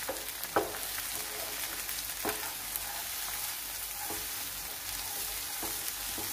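Eggs with chopped onion and green chili sizzling in a hot oiled nonstick pan while a wooden spatula stirs and scrapes them constantly, with a short scrape or knock every second and a half or so. The steady stirring breaks the egg into scrambled crumbs instead of letting it set like an omelette.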